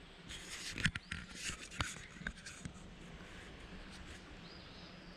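Handling noise as the camera is picked up and turned around: rustling and scraping with several sharp clicks over the first three seconds or so. Then faint woodland ambience, with a short bird call near the end.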